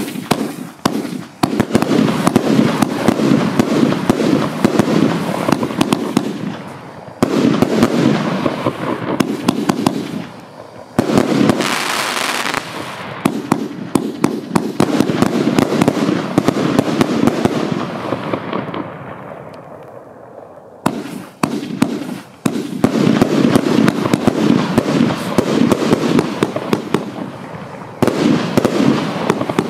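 Riakeo 'Shameless' 101-shot, 30 mm-tube firework compound firing: a rapid, continuous barrage of shots launching and bursting. It eases off briefly around two-thirds of the way through, then picks up again.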